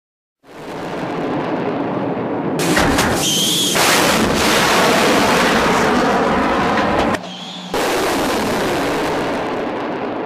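Added rocket-thrust sound effect: a loud, continuous rushing blast of noise that starts about half a second in and swells near three seconds. It dips briefly near seven seconds, and short whistling tones sound near three and seven and a half seconds.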